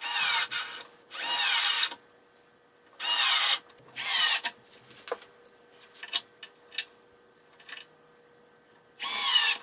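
Cordless drill driving screws into a steel furniture leg bracket, run in short bursts: four in the first five seconds and another near the end. The motor whine drops in pitch toward the end of each burst as the screw seats. Small clicks and taps of handling come between the bursts.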